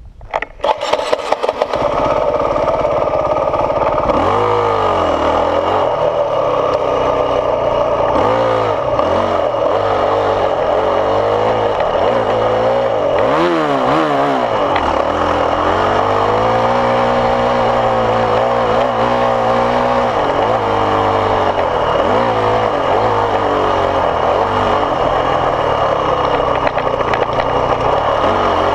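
Yamaha WR450F dirt bike's single-cylinder four-stroke engine catching and starting about a second in, then pulling the bike along a dirt trail. The engine note rises and falls again and again as the throttle is opened and closed.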